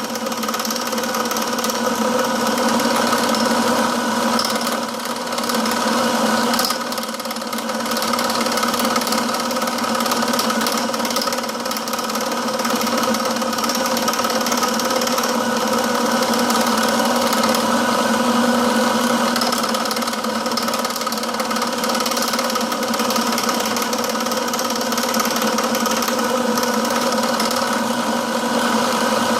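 Milling machine running steadily, a motor hum with a haze of cutting noise as its tool bit works a steel part.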